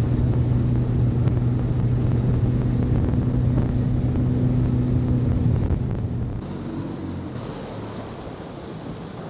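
Boat's outboard engine running at speed with wind and water rushing past; a steady hum that drops away about six seconds in, leaving quieter wind and water noise.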